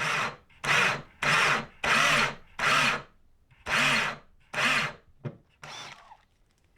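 Power drill boring a hole through a board, run in short trigger bursts: about seven quick spin-ups under half a second each, then a few fainter ones near the end.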